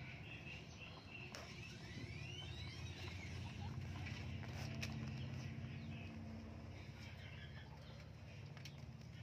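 Birds chirping in short rising calls over a low, steady hum.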